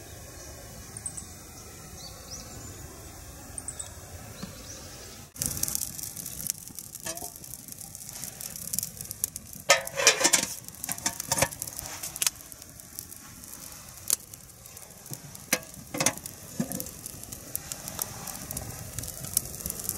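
Faint outdoor stillness with a few faint high chirps. About five seconds in, a campfire of twigs and branches starts crackling and popping. Several louder knocks come between about ten and sixteen seconds in, as a mess tin is handled and hung over the fire.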